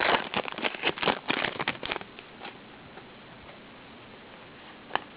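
Trading cards and their packaging being handled: a quick run of rustles and clicks for about two seconds, then a pause and one more click near the end.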